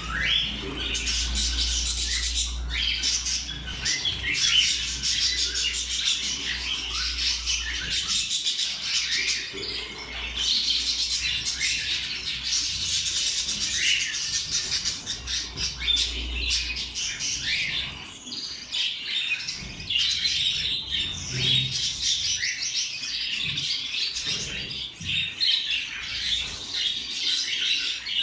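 Budgerigars chirping and chattering continuously in many short, high calls, with a low hum underneath at times.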